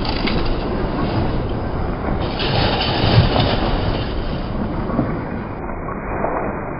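Rumbling roar and crashing debris of a partly demolished multi-storey building collapsing, with the loudest crash about three seconds in.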